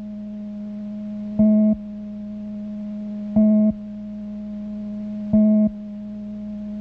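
Steady electronic drone tone with a short, louder electronic beep about every two seconds, three beeps in all; the drone swells slightly between beeps.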